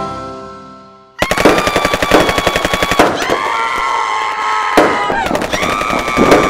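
Music fades out, and about a second in a fast, continuous crackle of fireworks bangs starts abruptly. Over it a man and a woman scream in long held screams, drawing breath and starting again every second or two.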